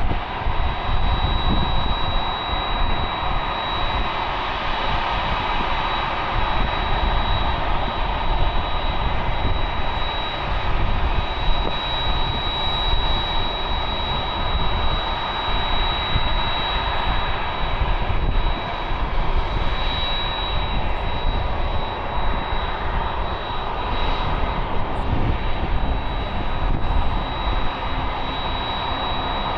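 Jet airliner engines running: a steady roar with a constant high-pitched whine over it, holding an even level throughout.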